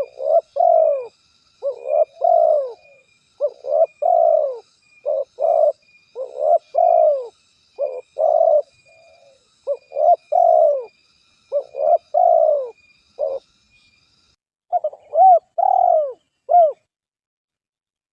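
Dove cooing: short coo notes in quick groups of two or three, repeated over and over, with a fainter high chirping behind them that stops near the end.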